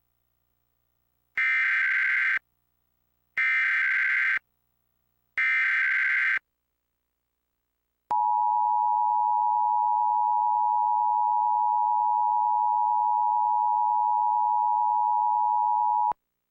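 Emergency Alert System header relayed over cable: three one-second bursts of SAME digital header data, about two seconds apart. About eight seconds in comes the EAS two-tone attention signal, a steady tone held for about eight seconds that cuts off sharply, announcing a Required Monthly Test.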